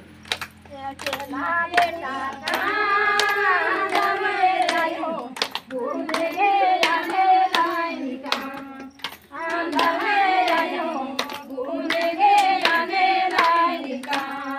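A group of women singing together in phrases, with hands clapping in a steady beat about twice a second.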